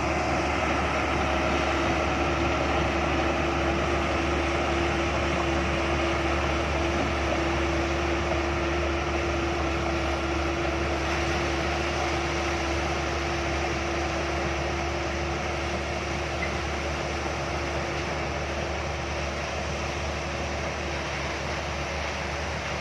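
A vehicle or machine engine running steadily, with a constant humming tone over even mechanical noise, easing slightly in level toward the end.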